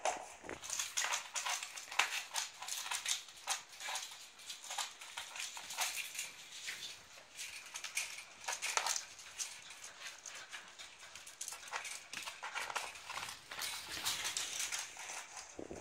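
Several puppies scampering on a wooden floor, their claws clicking and scrabbling in quick, irregular taps.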